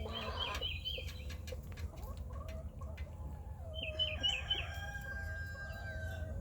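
Backyard chickens clucking, with a rooster crowing in a long wavering call about four seconds in. Two quick runs of about four high chirps, one near the start and one about four seconds in.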